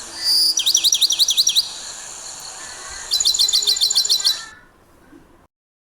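A songbird singing two quick phrases of rapid repeated high chirps with a short pause between them, and then the sound cuts off abruptly into silence.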